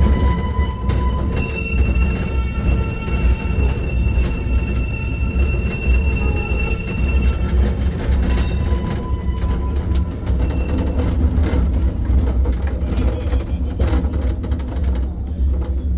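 Vintage tram running on its rails: a steady low rumble with high, steady squealing tones from the wheels, and irregular clicks and knocks from the wheels and running gear in the second half.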